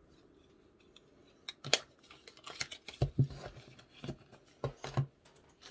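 Small cardboard cosmetics box and its wrapping being handled and opened: a run of sharp clicks and snips with a few duller knocks, starting about a second and a half in.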